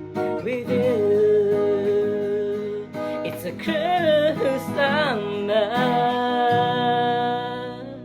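Unplugged pop song ending: a wordless sung line over ringing acoustic guitar. It starts with a long held note, moves into quick runs in the middle, and closes on a long held note that fades near the end.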